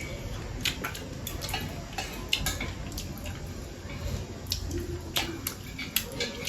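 Utensils clicking and scraping against a dish while noodles are eaten, in a run of irregular short clicks spread through.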